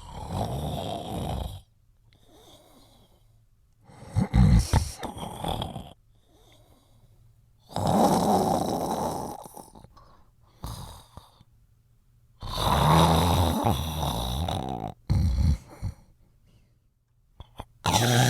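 A person snoring in slow, regular breaths, one snore about every four seconds with quiet pauses between.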